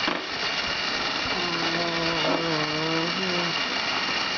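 Battery motor of a Tornado Beystadium running steadily with a high whine as it turns the centre disc, with a Beyblade top spinning on it. A voice hums a drawn-out, wavering tone through the middle.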